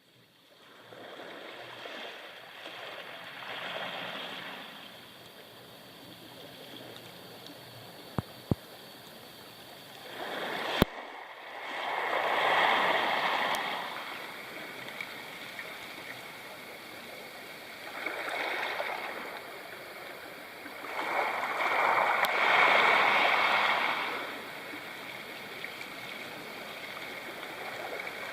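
Sea waves washing up on a pebble shore, swelling and falling every several seconds, with the loudest surges around the middle and toward the end. A few sharp clicks come about a third of the way in.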